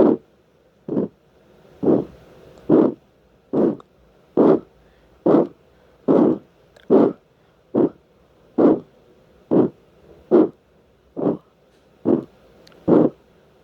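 Steam locomotive exhaust chuffing slowly and evenly, a little more than one chuff a second.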